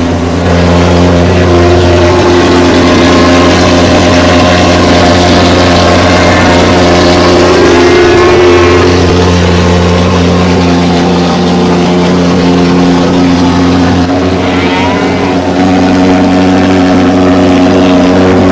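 SUPERFOGGER TH-160 thermal fogger's pulse-jet engine running with a loud, steady low drone while it sprays fog.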